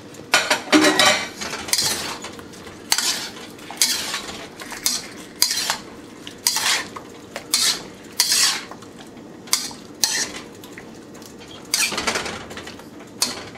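Metal wok spatula scraping and clanking against the wok while stirring food in a thickened sauce. The strokes are short and irregular, about one or two a second, with a brief pause near the end, over a faint sizzle.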